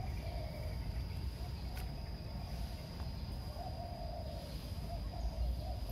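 Low, hooting animal calls repeated several times over a steady low rumble, with a thin high whine running through and a single sharp click about two seconds in.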